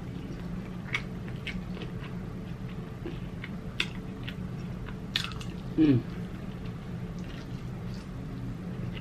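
Close-up chewing and wet mouth clicks of someone eating saucy chicken wings, heard as scattered sharp smacks over a steady low hum. A short 'mm' comes just before six seconds in.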